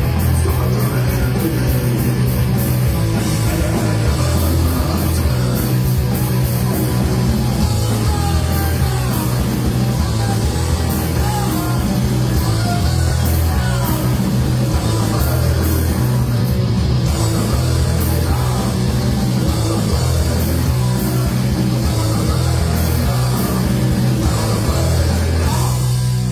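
Live rock band playing loud, heavy rock with a strong pulsing bass and crashing cymbals. Near the end the crashes stop while a low note rings on.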